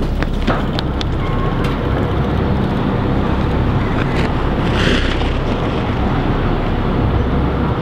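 Wind buffeting the microphone on a windy skyscraper rooftop: a steady low rumble, with a few sharp clicks in the first second and a brief rise of hiss about five seconds in.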